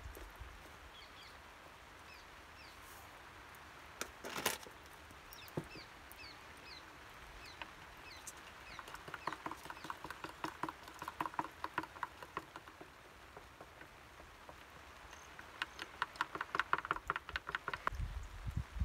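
Birds chirping faintly, a single knock about four seconds in, then two stretches of rapid light clicking and clattering from pots and a cup being handled.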